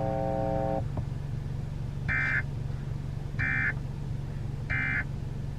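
Emergency Alert System end-of-message signal: three short, identical bursts of SAME digital data tones, evenly spaced about a second and a half apart, marking the end of a NOAA Weather Radio severe thunderstorm warning. A held tone cuts off about a second in, and a steady low hum runs beneath.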